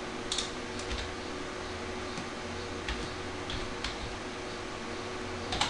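Computer keyboard keys being typed, a few separate irregular clicks spaced through, over a steady low hum.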